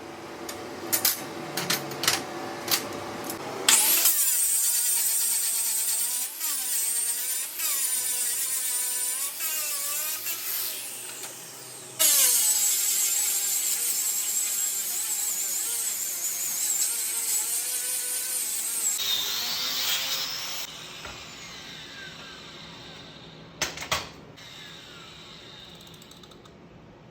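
Power grinder grinding the flash off a butt weld, its high whine wavering in pitch as the load changes, in two long passes with a short break about twelve seconds in; it runs down about twenty seconds in. Before it starts there are a few seconds of sharp crackles and clicks, and a couple of knocks come near the end.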